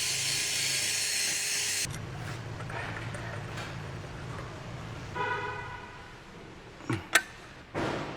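Workshop tool noise while rust is cleaned off a brake disc: a loud high hiss that cuts off abruptly about two seconds in, then a low hum, a short pitched tone about five seconds in, and a few sharp knocks near the end.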